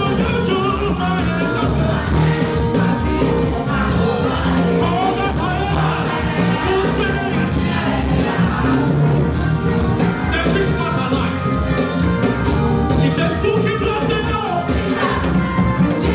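Live gospel praise music: a band with a steady beat and singers. It is slightly crackly, picked up on a camera's own microphone rather than from the sound desk.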